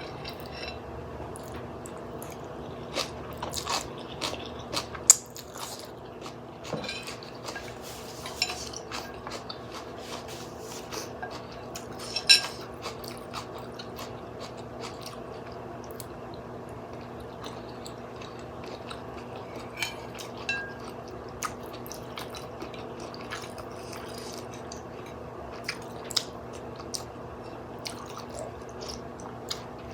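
A person eating glass-noodle soup with fish balls: utensils clicking and clinking against the bowl now and then, with chewing in between, over a faint steady hum.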